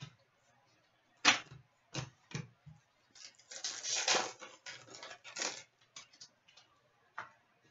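Trading cards being handled: a few sharp taps as cards are set down on a glass counter, then a few seconds of card stock sliding and rustling as they are flipped through, and one more tap near the end.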